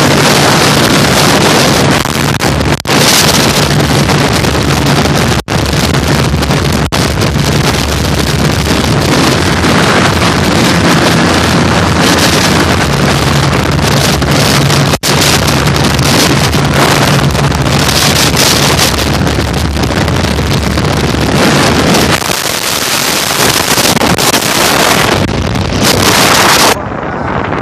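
Heavy wind buffeting on the microphone over the steady drone of a TVS Apache RTR 180's single-cylinder engine running at speed. The engine tone drops about three quarters of the way through, and near the end the sound turns muffled.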